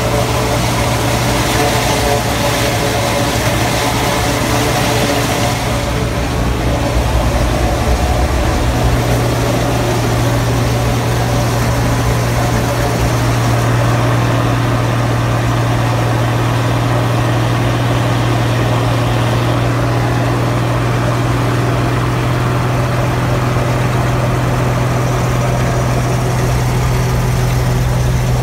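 Tractor engine running steadily under load with a forage chopper cutting and blowing corn: a constant low engine hum under a dense rushing noise. The high hiss eases a few seconds in.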